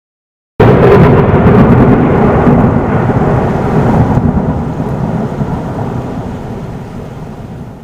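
Thunder sound effect: a sudden loud thunderclap with crackling that rolls and rumbles, fading away slowly over about seven seconds.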